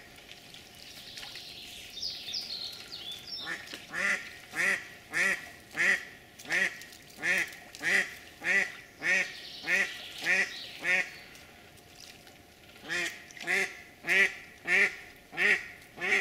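A live decoy hen duck of a mallard type quacking in two long, evenly paced runs of calls, about one and a half a second. A decoy calls like this when she senses a drake nearby.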